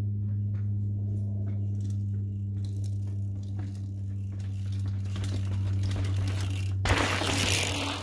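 A steady low hum, then near the end a mountain bike's tyres grind and skid through sand and gravel as it rides close past, a loud rush lasting about two seconds.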